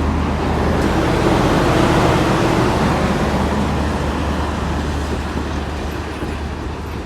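Union Pacific Big Boy excursion train rolling past, a loud rumble that swells to its loudest about two seconds in and then slowly fades as it moves away.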